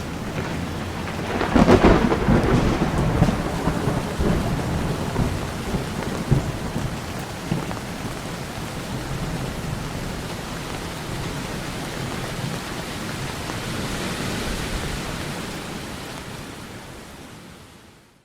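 Steady heavy rain with a loud clap of thunder about two seconds in that rumbles on and dies away over several seconds. The rain carries on and fades out at the end.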